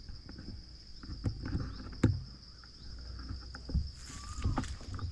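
Insects buzzing in one steady high-pitched tone, with irregular knocks and rustles close by.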